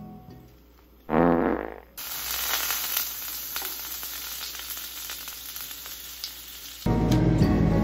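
A slice of bread frying in margarine in a hot frying pan, sizzling steadily from about two seconds in until it cuts off near the end. A short loud buzz comes about a second in, just before the sizzling starts.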